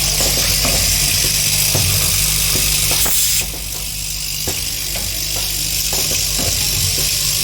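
Blade-nut screwing and tightening machine running: a steady loud hiss with an even low hum underneath and scattered light mechanical clicks. The hiss drops away about three and a half seconds in.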